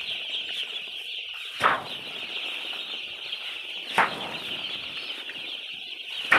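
Broiler chickens chirping in a steady, high, dense chorus, with three short loud flurries of wings flapping about two and a half seconds apart.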